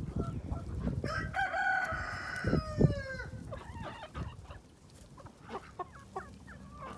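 A rooster crows once, a call of about two seconds that drops in pitch at the end, over wind buffeting the microphone. Hens cluck briefly afterwards.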